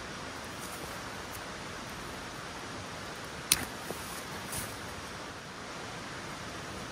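Steady outdoor background hiss. About halfway through there is one sharp click, then a smaller tick and a brief rustle as a person shifts on dry leaves inside a canvas tent.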